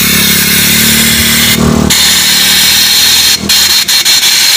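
A loud motor runs with a steady low hum under a strong hiss; the hum cuts off about three and a half seconds in while the hiss carries on.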